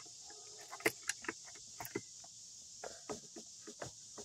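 Scattered light clicks and knocks of hands working a car's radiator hose and its clamp, over a steady high chirring of crickets.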